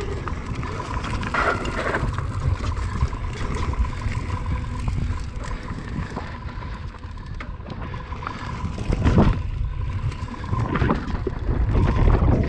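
Mountain bike riding over dirt and rock singletrack: wind rumbling on the action camera's microphone, with knocks and rattles from the tyres and bike over bumps and a thin steady whine. Louder rough jolts come about a second and a half in and again near nine seconds.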